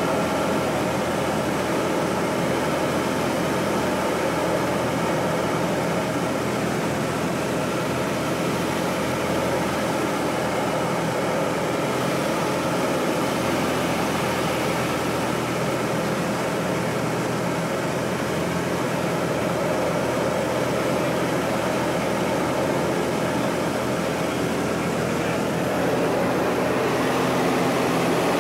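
Pitts biplane's engine and propeller droning steadily with rushing airflow, heard from inside the cockpit, getting slightly louder near the end as the plane pulls into a 3G turn.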